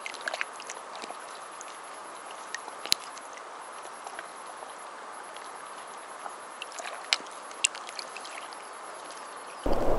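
Soft, steady lapping of lake water with a few small sharp clicks and drips. Near the end it cuts abruptly to louder water lapping.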